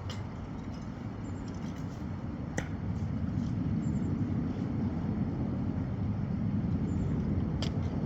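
A steady, low engine rumble that grows louder about three seconds in, with a few faint clicks.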